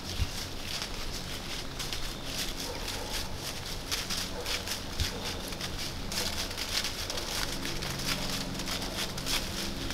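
A white-tailed buck walking through dry fallen leaves, its hooves crunching and rustling the leaves in an uneven string of steps.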